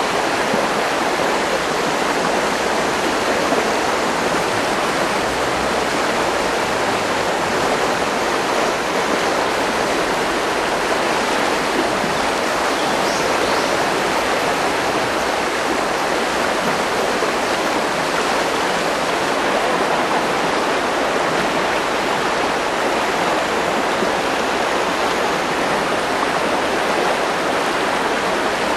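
Steady rush of a mountain river's current flowing over its rocky bed.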